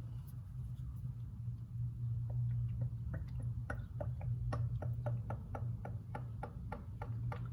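Motor oil glugging out of a jug as it is poured into the engine's oil filler, a run of short, regular glugs at about three a second that starts about a second in, over a steady low hum.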